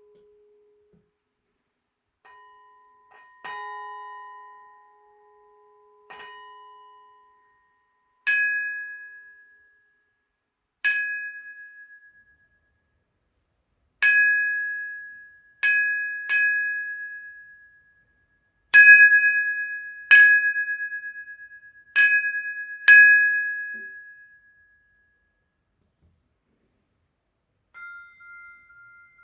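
Crystal glasses struck one at a time, each giving a clear ringing tone that dies away over a second or two, about a dozen strikes in all. The first few ring lower; from about eight seconds in, one higher-pitched glass is struck again and again.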